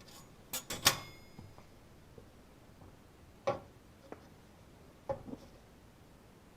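Metal objects being handled and set down: three quick clanks, the last and loudest ringing briefly, then a few scattered knocks.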